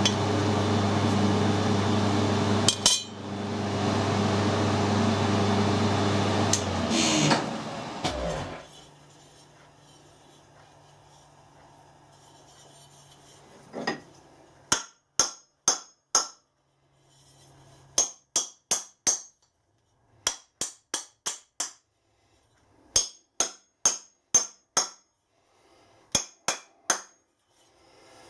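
A workshop electric motor hums steadily, then winds down with a falling pitch and stops about eight seconds in. After a pause come sharp metallic taps with a short ring, in quick runs of four or five, repeated several times.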